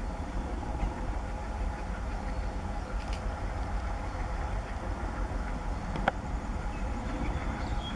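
ALCO WDM-3A diesel locomotive's 16-cylinder engine running under power as the train approaches, a steady low rumble. One brief sharp click about six seconds in.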